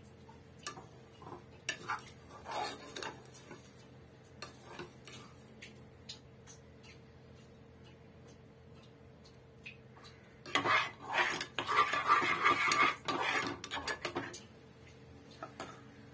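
Metal slotted spoon scraping and clinking against the pressure-cooker pan while stirring sugar as it melts into caramel. A few scattered clinks at first, then about four seconds of rapid, louder scraping and clattering past the middle.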